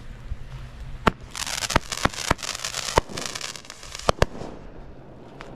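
Consumer fireworks going off on the ground: about seven sharp bangs, with a dense burst of crackling between about one and three and a half seconds in.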